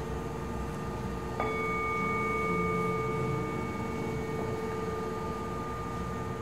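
Metal singing bowl struck once with a wooden mallet about a second and a half in, ringing on with several steady overtones that slowly fade. The bowl is already ringing from the previous strike at the start.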